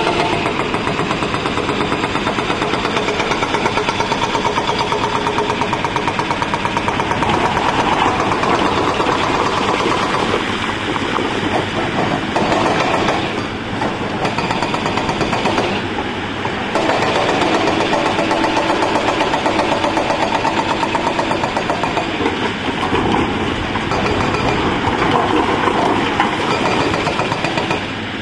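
Diesel engine of a Hyundai 210 excavator running hard under hydraulic load while it digs and shifts broken rock. The engine note eases twice around the middle and then comes back up.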